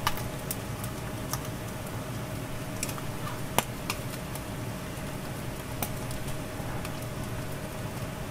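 Eel fillet sizzling under an overhead broiler, fat spitting in scattered sharp pops and crackles, the loudest about three and a half seconds in, over a steady hum.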